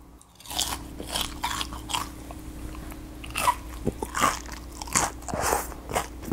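Biting into and chewing a deep-fried, crumb-battered gulab jamun: a crisp bite about half a second in, then repeated crunching of the fried crust as it is chewed.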